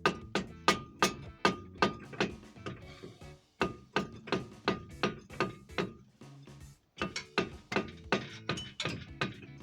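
Background music with a fast, even percussive beat of about four strikes a second, pausing briefly a little past the middle.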